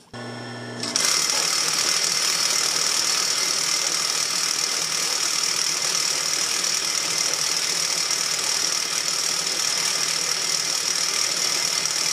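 Industrial sewing machine running steadily, its belt driving the bobbin winder as a bobbin fills with thread. A lower hum starts first, and about a second in the machine comes up to a steady whirr with a high whine.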